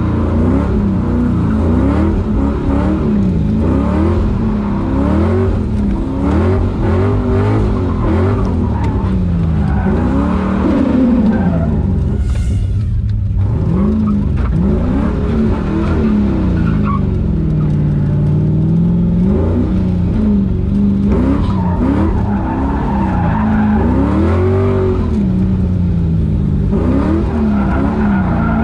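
LS-swapped V8 in a Mazda Miata NB, heard from inside the cabin, revving up and down again and again while drifting, with tyres skidding. The revs briefly fall away about twelve seconds in, then hold lower and steadier for a few seconds before climbing again.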